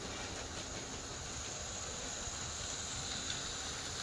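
H0-scale Märklin F7 model diesel locomotive set running along the track: a steady hiss and hum of its motor and wheels on the rails.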